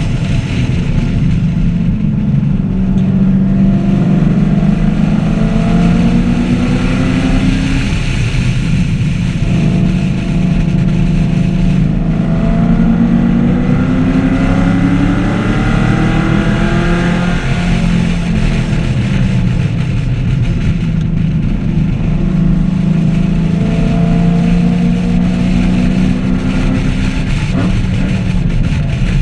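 V8 engine of a 2014 Chevrolet Camaro SS 1LE at full throttle on a race track. The engine note climbs steadily for several seconds, drops back, and climbs again, about three times, as it runs up through the revs and shifts or lifts.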